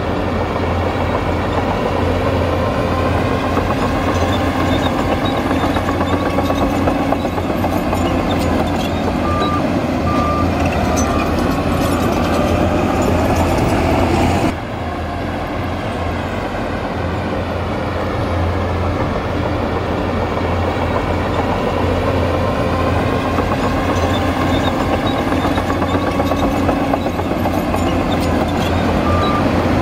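Heavy diesel earthmoving machinery running under load, the engine pitch rising and falling as it works. Short high beeps of a reversing alarm sound two or three times about ten seconds in and again near the end, and the overall sound drops suddenly about halfway through.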